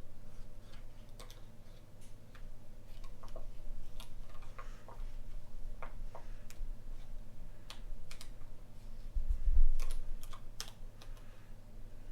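A pocket knife cutting open a tool's retail packaging, with the package handled: scattered small sharp clicks, scrapes and crinkles, and one dull thump about nine seconds in.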